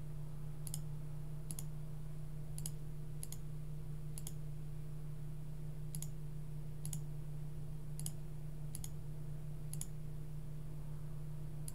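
Computer mouse clicking: about a dozen single, sharp clicks spaced roughly a second apart as options are picked, over a steady low hum.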